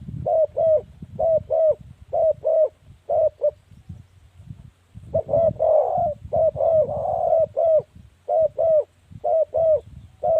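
Spotted dove cooing: short paired coos repeated about once a second, breaking off for over a second about four seconds in, then resuming with a denser, overlapping stretch a couple of seconds later. A low rumble runs underneath.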